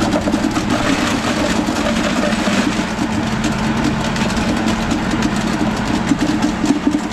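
An engine running steadily at idle, with a continuous hum and many small clicks and clatters over it.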